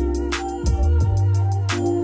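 Background music with a steady beat: deep held bass notes under drum hits and quick, light hi-hat ticks.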